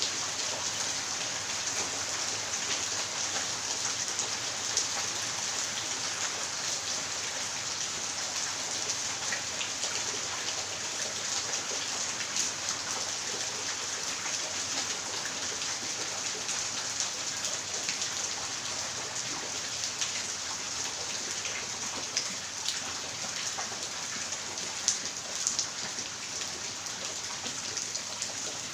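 Steady rain falling and pattering on wet ground and tiles, with a few sharper drips and splashes standing out near the end.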